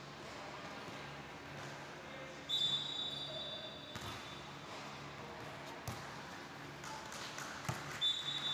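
Referee's whistle blown twice, one long steady blast about two and a half seconds in and another near the end, with a few sharp volleyball hits between them and players' voices echoing in the hall.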